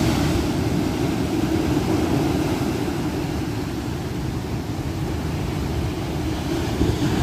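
Heavy storm waves breaking and foaming on the shore: a steady, low rushing noise.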